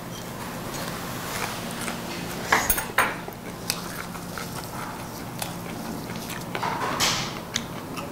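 Tableware at a meal: utensils clicking and clinking against plates and dishes in scattered short knocks, with a louder cluster about two and a half to three seconds in and another near seven seconds. A faint steady low hum runs underneath.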